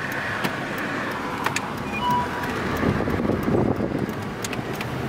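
Inside the cab of a 1997 Chevrolet K1500 Z71 pickup on the move: the fuel-injected V8 running steadily under road and wind noise, with a few faint clicks.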